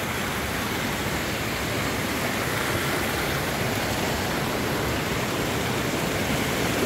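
Shallow river rushing over rocks and small cascades: a steady, even rush of water, growing slightly louder toward the end.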